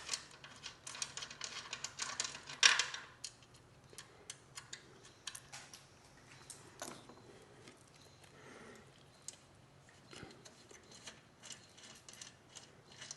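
Irregular small metallic clicks and clinks of bolts, washers and hand tools being handled during assembly, busiest in the first few seconds with one louder clack near the three-second mark, then sparser ticks.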